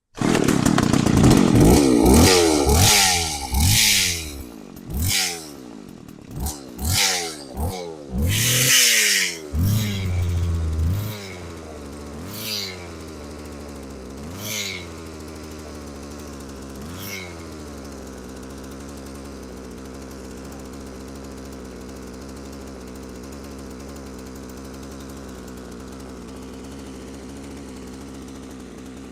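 McCulloch 3516 two-stroke chainsaw engine, bar and chain off, revved in a quick series of throttle blips that rise and fall, the blips spacing out and fading over the first half. It then settles into a steady idle.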